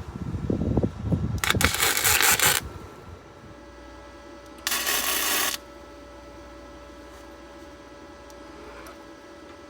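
Two short bursts of crackling welding arc from a Yeswelder Flux135 flux-core wire welder: one of about a second, starting a second and a half in, and one of just under a second about five seconds in, each switching on and off sharply. Before the first bursts come some low, uneven knocks and rumbles.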